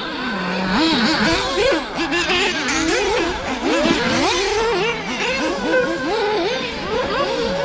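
Several radio-controlled racing cars' motors revving up and down at once, their pitches rising and falling and overlapping, as the pack races round the track.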